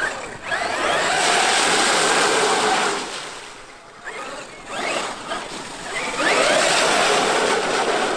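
Traxxas X-Maxx electric RC monster truck driving: two long runs of tyre and drivetrain noise, starting about a second in and about six seconds in. Between them the brushless motor whines, rising and falling in pitch.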